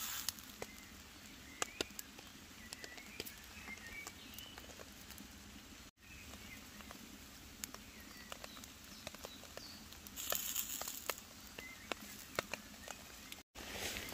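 Steak sizzling on a small charcoal grill, with scattered pops and crackles of fat spitting onto the hot coals, and a louder hiss for about a second near ten seconds in.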